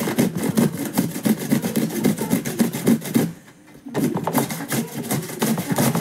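Cucumber being grated on a stainless steel box grater: rhythmic rasping strokes at about four a second, with a brief pause a little past three seconds in.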